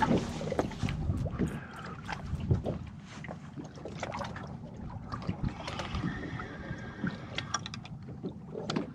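Water lapping against the hull of a small boat, with scattered knocks and clicks from handling a fishing rod and reel.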